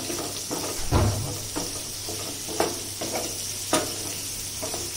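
Chopped onions sizzling in hot oil in a nonstick kadai as they are sautéed until brown. A wooden spatula stirs them, scraping and knocking against the pan a few times; the loudest knock comes about a second in.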